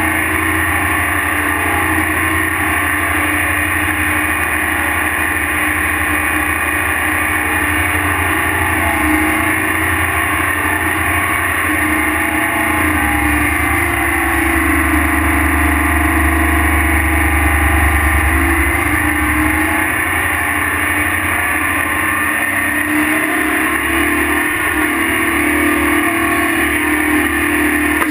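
Diesel tractor engine running steadily under load while towing a pull-type scraper that is cutting and filling with dirt. Its low drone swells for several seconds midway.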